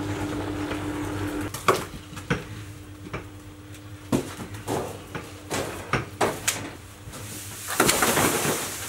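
Steel wheelbarrow loaded with wet concrete being wheeled along, its metal tray clattering and knocking over bumps and a plank, then tipped so the concrete slides out with a rushing scrape near the end. A steady hum runs underneath.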